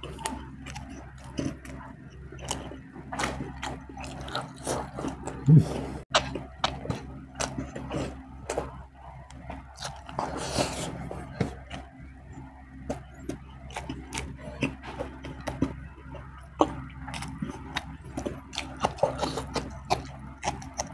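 Close-miked eating sounds from a person eating by hand: chewing and lip smacks with frequent short clicks, and a longer noisy sound about ten seconds in, over a steady low hum.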